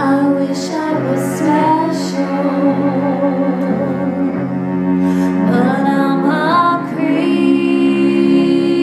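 Bowed string ensemble with cello playing sustained chords, with a higher line sliding upward and the chord changing about seven seconds in.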